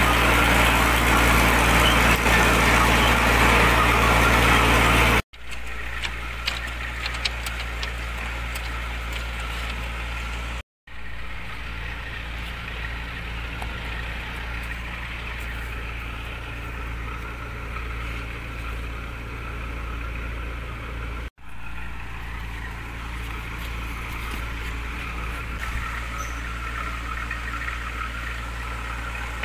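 Brick-making machinery running with a steady low drone, loud for about the first five seconds, then quieter for the rest; a few light clicks about six to seven seconds in.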